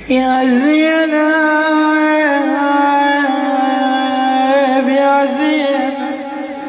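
A woman's solo voice chanting a Shia latmiya lament, holding one long, wavering note on the name "Zaynab". The note shifts slightly in pitch a couple of seconds in and fades about six seconds in.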